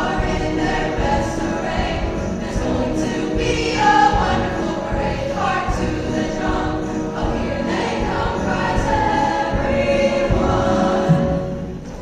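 Choir singing with instrumental accompaniment; the singing drops away about a second before the end.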